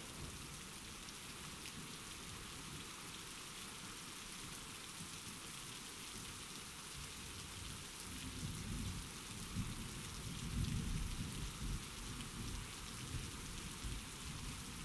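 Steady rain falling, with a low rumble of thunder swelling about halfway through and fading near the end.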